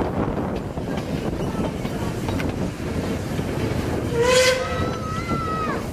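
Narrow-gauge steam locomotive's whistle blown once about four seconds in, lasting about a second and a half and shifting to a higher note partway through. It sounds over the steady running rumble and clatter of the train on the rails.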